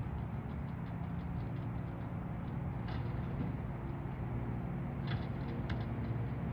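Garbage truck engine running steadily, with a few short knocks or clanks about three seconds in and again near the end.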